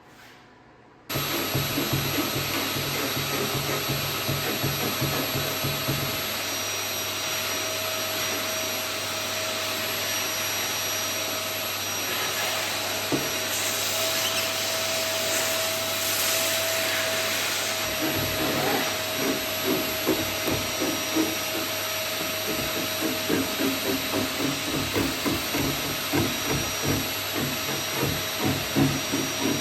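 A motor-driven machine switched on about a second in and running steadily. From about 18 s, repeated irregular knocking or rubbing sounds are heard over it.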